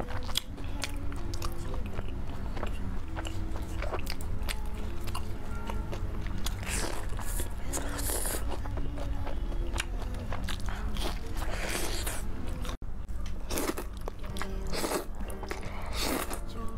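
Close-miked crunchy bites and chewing of deep-fried breaded food, over steady background music.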